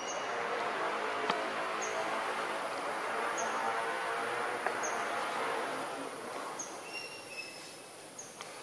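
A distant motor swelling and then fading away as it passes, with short high chirps repeating about once a second.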